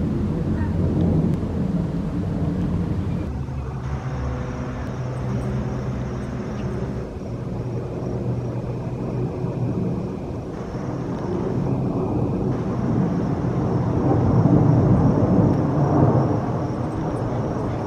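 Jet engine rumble of a four-engine Boeing 747 airliner passing overhead in flight. It swells louder near the end.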